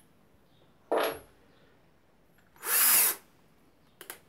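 Parkside 12 V cordless drill/driver running its motor and gearbox with a drill bit in the chuck and no load, in two short trigger squeezes of about half a second each, one about a second in and one near three seconds; each winds up and dies away. A couple of light clicks follow near the end.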